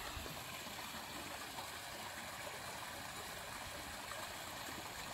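Faint, steady outdoor background hiss with a little low rumble, and no distinct splashes from the trap being drawn through the water.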